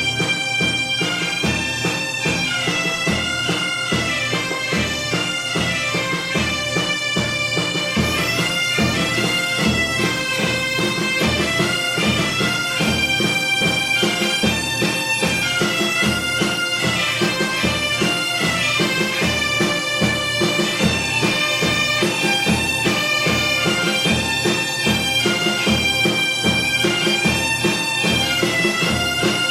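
Instrumental music: a melody over a steady held drone note, with a regular low drum beat.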